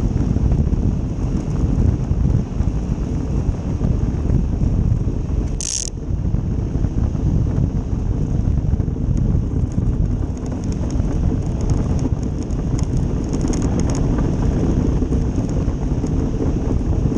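Ice boat's steel runners rumbling and hissing over lake ice, with wind on the microphone. A short sharp hiss comes about six seconds in, and light, rapid ticking follows in the second half.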